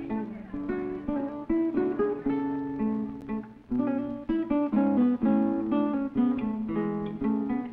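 Acoustic guitar music: a continuous run of plucked notes and chords.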